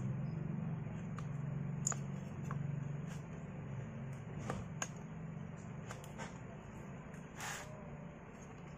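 Light clicks, taps and rubbing of plastic parts being handled as the plastic top cover is fitted over a Stihl MS250 chainsaw's cylinder, with a short rustle near the end. A steady low hum runs underneath.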